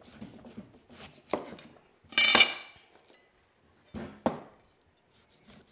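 Chinese cleaver knocking through a fresh pineapple onto a wooden chopping block: a few sharp knocks. The loudest, about two seconds in, has a brief metallic ring from the blade, and two more follow close together near the end.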